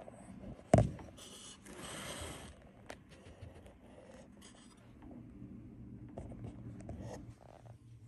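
A single sharp knock about a second in, then soft scratching and rubbing with scattered small clicks: handling noise from the recording device.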